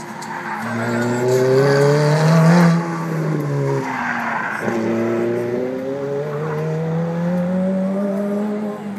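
Sports car engine revving hard through a cone course: the pitch climbs, drops sharply twice (about three and four and a half seconds in), then climbs steadily again before falling near the end. Tyre squeal over the first hard acceleration.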